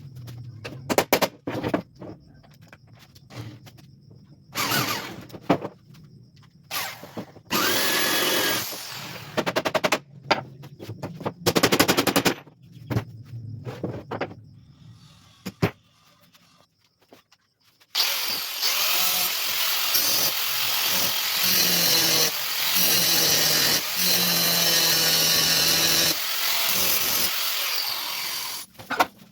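Bandsaw cutting wood: a run of knocks and short loud spells of cutting noise, then a quiet gap, then one long steady cut for about ten seconds.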